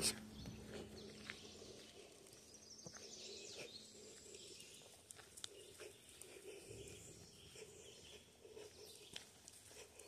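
Quiet trail ambience: a horse fly buzzing faintly as a steady hum that fades out about four seconds in, soft footsteps crunching on gravel, and faint bird chirps.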